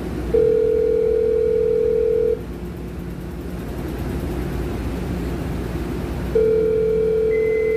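Light rail car's door alert tone: a steady electronic beep about two seconds long, sounding twice about six seconds apart while the doors stand open, over the car's low steady hum.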